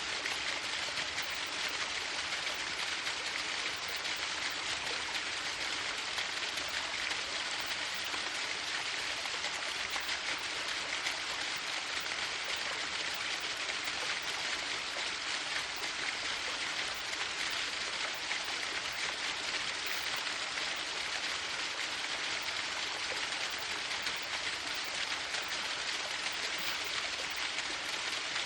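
A waterfall: a steady, even rush of falling water, strongest in the upper range, unchanging throughout.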